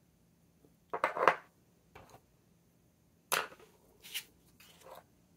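Short knocks and clatters of small objects handled on a tabletop: an ink bottle seated into a plastic holder, and pens and a paintbrush laid down. A cluster comes about a second in, a single tap near two seconds, then a few more between three and five seconds.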